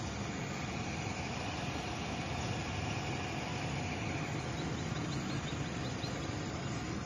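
Mitsubishi L200 Triton pickup driving slowly through floodwater: its engine runs steadily under the even rush of water being pushed aside by the vehicle.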